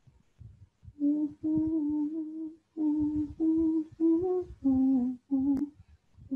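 A man humming a tune with his mouth closed: a run of about nine held notes, each about half a second long, stepping up and down in pitch, starting about a second in.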